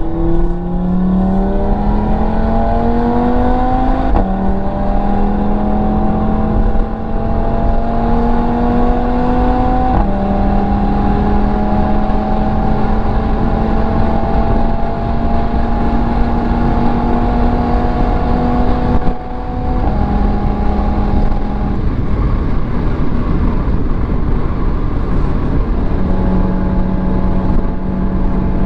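Sports car engine heard from inside the cabin, accelerating hard at motorway speed: the pitch climbs, drops sharply at upshifts about four and ten seconds in, then rises slowly. The driver eases off around nineteen seconds in. Steady road and wind noise runs underneath.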